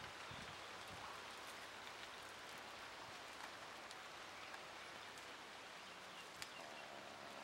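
Faint steady hiss with a few soft crackles as the dry, baked banana leaf wrapped around the clay-baked fish is handled and peeled open.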